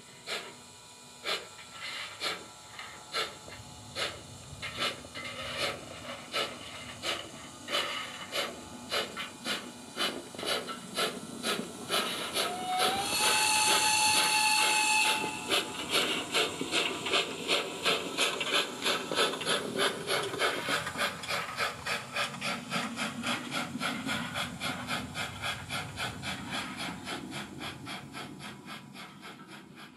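Oxford Rail Adams Radial 4-4-2T model locomotive's ESU LokSound V4 sound decoder playing steam exhaust chuffs through its small onboard speaker, the beats quickening as the model gets up speed and fading as it runs off. About halfway through, a steam whistle sounds for about two seconds, sliding up in pitch and then holding.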